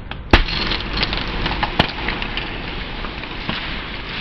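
Small plastic tub of beads being crushed under a car tyre: one loud crack about a third of a second in as it gives way, then a dense crackling of snapping plastic with another sharp snap near two seconds, thinning out towards the end.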